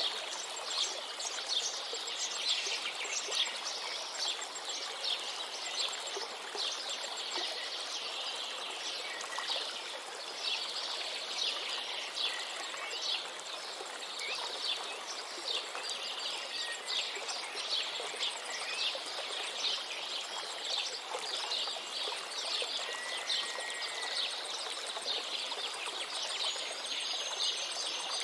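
River water running steadily, with many small birds chirping rapidly over it, short quick notes coming thick and fast, and an occasional brief whistled note.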